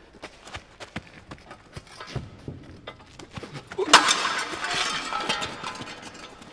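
Scattered light knocks and scuffles, then a loud crash about four seconds in followed by about two seconds of breaking, shattering glass and debris.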